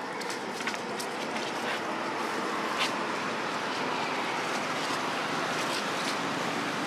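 Steady rushing noise with a few faint, short clicks scattered through it.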